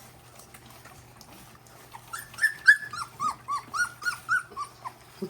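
Young puppy whining in a quick string of short, high cries, each one falling in pitch, about four a second, starting about two seconds in.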